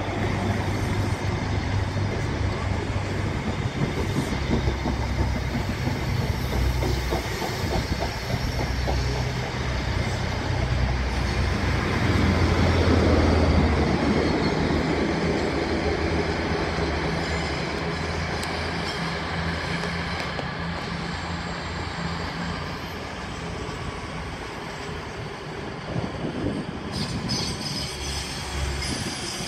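First Great Western InterCity 125 High Speed Train passing, with the Class 43 power cars' diesel engines running and steady wheel-on-rail noise. It is loudest about halfway through as the rear power car goes by, then fades as the train draws away.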